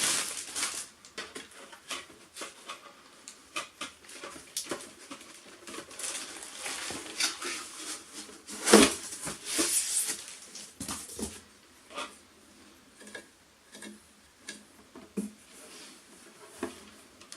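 Handling noises: irregular rustles, clicks and knocks of objects being picked up and set down, the loudest about nine seconds in.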